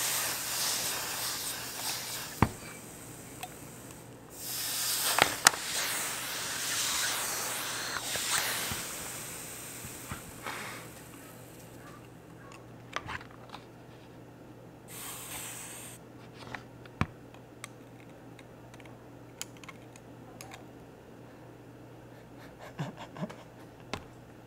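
Hot clothes iron pressed against ice, hissing as the ice melts on its soleplate. The hiss comes in spells of a few seconds through the first nine seconds or so, and once more briefly past the middle. Sharp clicks and taps of ice being handled and set down are scattered among the hiss.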